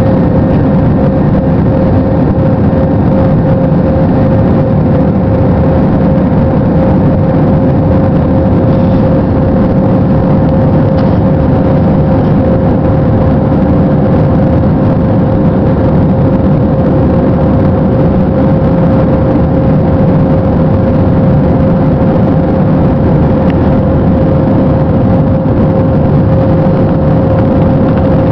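Airliner's jet engines running during takeoff and departure: a steady, loud noise with a constant mid-pitched hum.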